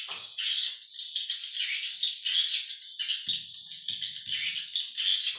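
Swiftlet chirping calls, high and twittery, coming in repeated bursts about every two-thirds of a second.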